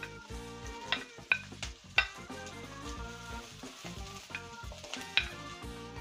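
Chopped red onion, peppers and squash sizzling as they are scraped from a plate into a hot oiled pan, with a few sharp clicks of the wooden utensil against the plate and pan.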